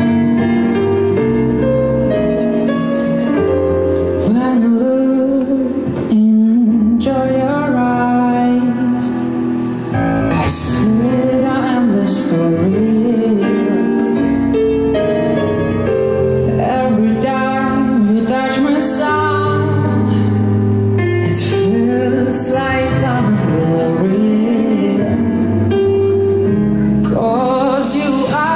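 Pop ballad: a man singing over instrumental backing, his voice coming in a few seconds in after a short instrumental passage.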